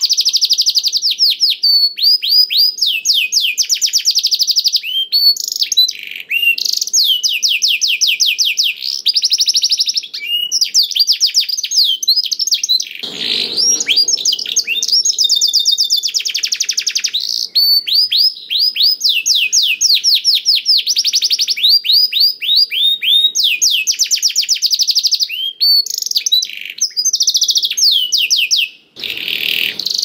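Domestic canary singing a long, continuous song of fast trills: rapid runs of repeated notes, each sliding downward in pitch, phrase after phrase with only short breaks.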